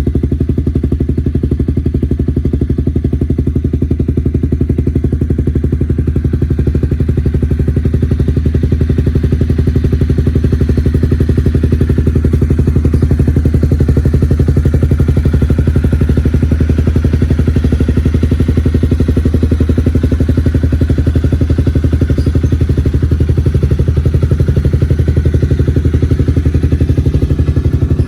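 Honda CBR250 engine running steadily at idle through an R9 aftermarket exhaust, an even pulsing note with no revving.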